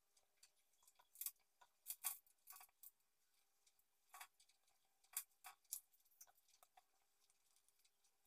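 Faint, irregular dry taps of a paintbrush dabbing paint onto paper, in scattered clusters, with the loudest taps about two seconds in and five seconds in. A faint steady hum runs underneath.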